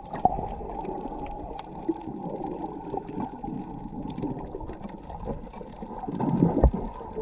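Muffled underwater water noise with gurgling and scattered small clicks, swelling louder about six seconds in with a dull thump.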